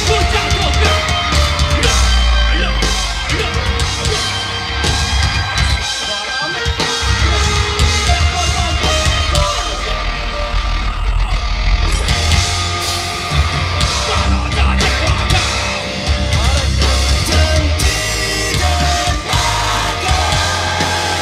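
Live rock band playing loud: electric guitars, drums and heavy bass, with a singer's vocals over them.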